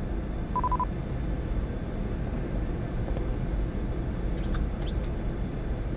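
Steady rumble of airflow and engines on the flight deck of a Boeing 747 on final approach, with a short high beep about half a second in.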